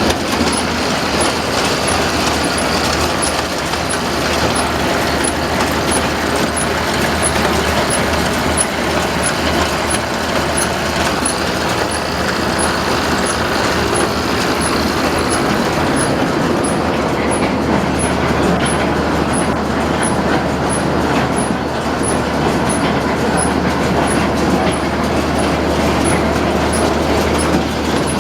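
New Holland 650 round baler running empty, driven from a tractor's PTO: rollers, chains and new belts turning in a steady mechanical rattle over the low, even hum of the tractor.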